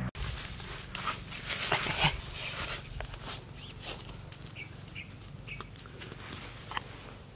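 A thin stick scraping and jabbing into dry soil and grass at an insect burrow, giving irregular scratches and clicks that are busiest in the first few seconds. A few short animal calls sound in the background.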